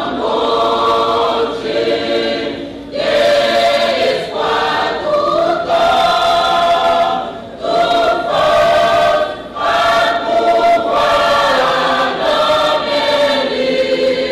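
Large choir singing in harmony, in sustained phrases with short breaks between them.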